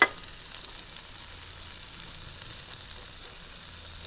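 Tailor fillets and freshly added sliced mushrooms sizzling in butter in a frying pan: a steady frying hiss.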